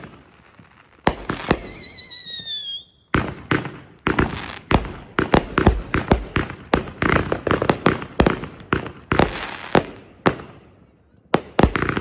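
Consumer firework cakes going off. A bang with a falling whistle about a second in is followed by a rapid barrage of sharp reports and crackling that lasts about seven seconds and dies away, with a couple more bangs near the end.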